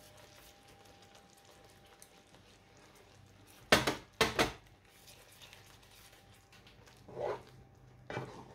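Wooden spatula stirring a thick cream sauce in a frying pan, mostly faint. About four seconds in there are two sharp knocks close together, of kitchenware striking the pan.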